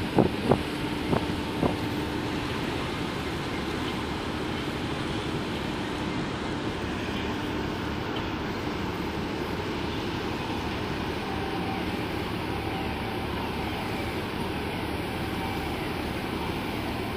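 Steady rumble of a container ship and its tug manoeuvring alongside a quay during berthing, with a faint steady hum running through it. A few sharp knocks come in the first two seconds.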